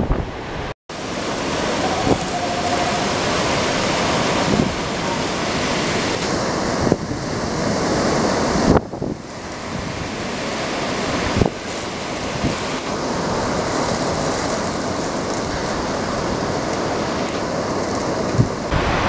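Hurricane-force wind and driving rain: a dense, steady rush of storm noise with gusts buffeting the microphone. It drops out briefly about a second in, and its level shifts suddenly a few times as the footage cuts.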